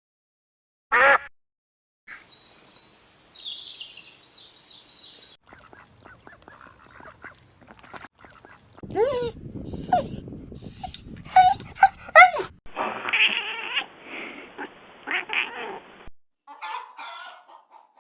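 A run of different animal calls one after another, changing abruptly every few seconds: a short pitched call about a second in, high chirping, then louder calls that slide in pitch, and a noisier stretch near the end.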